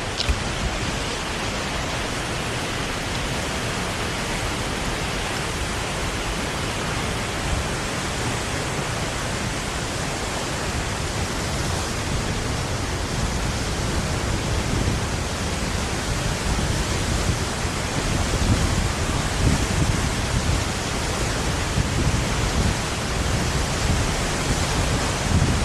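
South Falls' waterfall roaring, a loud, steady rush of falling water. In the last several seconds, low, uneven rumbling buffets join in.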